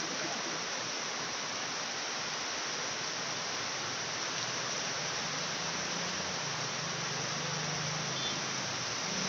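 Steady hiss of background noise with no distinct tool clicks or knocks; a faint low hum comes in about halfway through.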